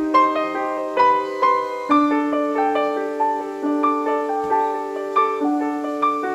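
Background music: a gentle solo piano piece of arpeggiated notes over held bass notes.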